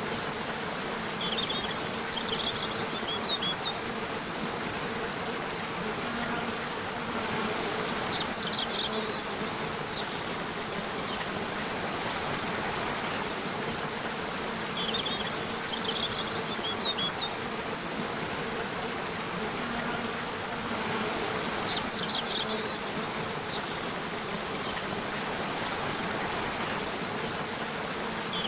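Nature soundscape: a steady rush like flowing water, with a faint low hum underneath and short clusters of high bird chirps recurring every six or seven seconds.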